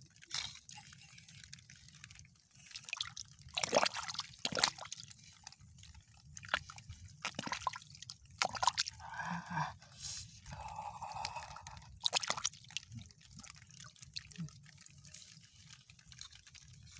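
Wet splashes and drips of muddy water stirred by a hand plunging into shallow mud, coming in irregular bursts.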